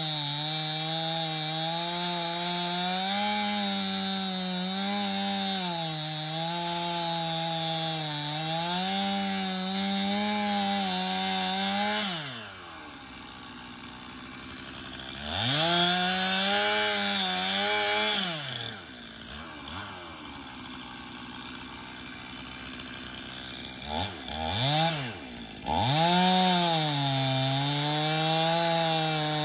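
Stihl MS291 two-stroke chainsaw cutting through cherry logs at full throttle, its pitch wavering as the chain bites. About twelve seconds in it drops to idle. It is revved up once, idles again, gets two quick blips, and then goes back to full-throttle cutting near the end.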